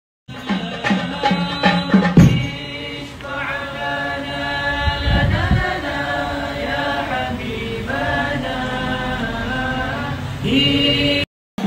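Several voices chanting a devotional maulid song in unison, the melody drawn out and bending from note to note. The sound cuts out suddenly near the end.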